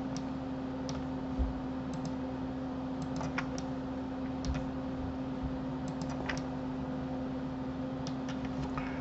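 Scattered computer mouse and keyboard clicks, spaced irregularly about once a second, over a steady low electrical hum.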